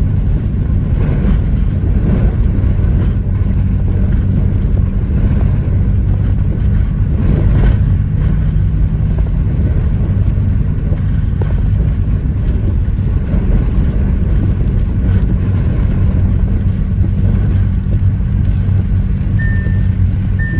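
Storm chaser's vehicle running with a steady low engine hum while hurricane wind gusts buffet it. Near the end a high electronic beep starts, repeating about once a second.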